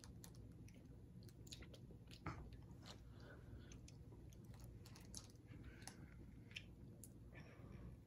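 Faint mouth sounds of a child eating candy: scattered wet clicks and lip smacks, with one louder click a little over two seconds in, over a low steady room hum.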